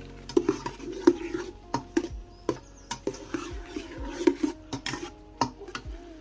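Long metal slotted skimmer stirring and scraping through a sofrito of onion and peppers in an enamelled steel pot, with irregular clinks and knocks of metal on enamel, a couple a second. The vegetables sizzle underneath as white wine added to deglaze the pot cooks off.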